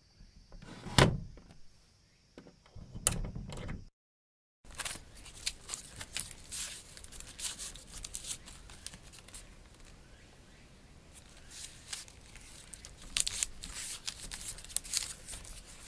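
Small wooden sliding door of a tea-house nijiriguchi (crawl-in entrance) knocking shut about a second in, with a second knock and a low rumble around three seconds. After a brief silence, a light wooden sliding screen on a tea-room window slides in its grooves: a long run of soft scraping and rattling, busiest near the end.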